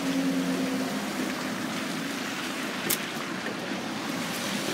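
Steady hiss of road traffic on a wet road, with a low engine hum that fades out about a second in. A single sharp click about three seconds in.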